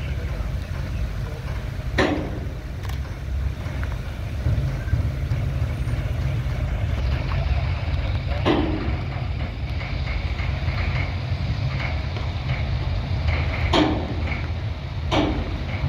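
Heavy truck running close by with a steady low rumble. Short sharp knocks or clatters come about two seconds in, near the middle, and twice near the end.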